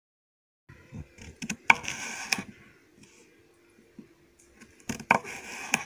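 Kitchen knife slicing through a raw green mango onto a wooden cutting board: a few sharp knocks of the blade on the board with short scraping cuts, about two seconds in and again near the end.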